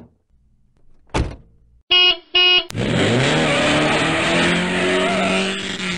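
A car door shuts with a thunk, and the car horn beeps twice, briefly. Then the car's engine starts, its note rising, and runs loudly.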